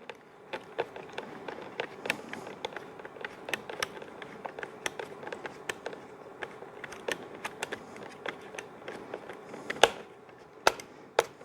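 A screwdriver on a Leatherman multi-tool driving a small screw into a plastic trimmer part: a run of irregular light clicks and ticks, with a few sharper clicks near the end.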